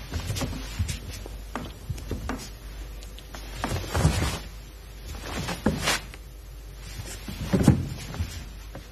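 Bare feet stepping and sliding on a martial-arts mat, with the swish of cotton karate uniforms, as two karateka shift stance and trade techniques. The result is a series of short soft thuds and swishes, the strongest near the end.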